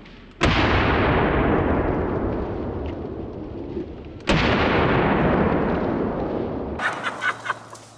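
Two shots from a big-bore Smith & Wesson X-frame magnum revolver, about four seconds apart, each very loud and followed by a long rolling echo that fades over several seconds. A few sharp ticks follow near the end.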